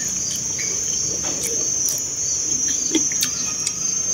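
A steady high-pitched insect drone, with a few light clicks and mouth sounds of people eating rice with chopsticks.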